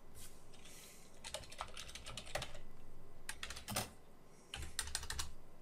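Typing on a computer keyboard: an irregular run of key clicks in small groups with short pauses between them.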